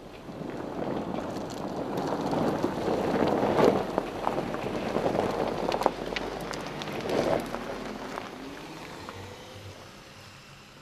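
A Volkswagen Touareg's tyre rolling slowly over loose gravel, crunching, with sharp pops and clicks of stones under the tread. It swells over the first second or two and fades near the end.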